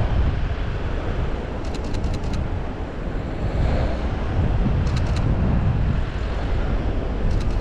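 Wind buffeting the microphone as a steady low rumble, with three short bursts of rapid camera shutter clicks from a Canon EOS R firing in continuous mode: about two seconds in, about five seconds in, and near the end.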